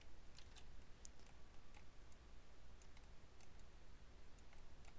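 Faint, scattered clicks of a computer mouse, about a dozen irregular taps, over a low steady hum.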